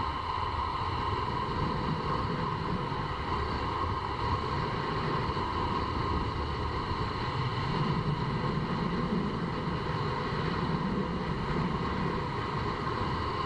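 Longboard wheels rolling fast downhill on asphalt, a steady rumble with wind rushing over the microphone.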